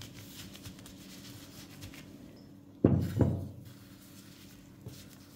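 Gloved hands handling a block of dough on a silicone baking mat: soft rustling, then two dull thumps in quick succession about three seconds in.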